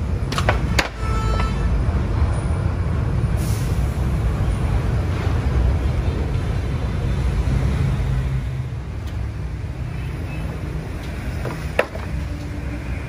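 Steady low rumble of a truck engine idling. Two sharp knocks come right at the start and another near the end, as the tracks are handled.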